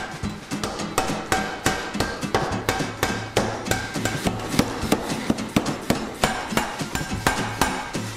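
Power hammer striking a glowing 4140 steel bar to draw out the stock: a quick run of heavy metal-on-metal blows, about four or five a second.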